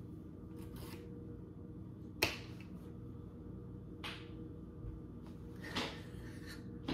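A few sharp finger snaps, a second or two apart, the loudest about two seconds in, over a faint steady hum.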